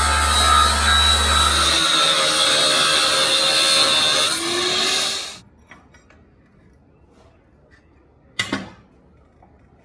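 A power tool running against a workpiece, with a steady low hum for the first two seconds; it cuts off suddenly about five seconds in. After a quiet stretch there is a single sharp knock near the end.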